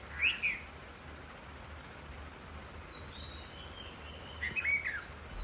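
Small birds chirping: a few short chirps near the start, a falling whistle in the middle, and more chirps and another falling whistle near the end, over a faint steady low hum.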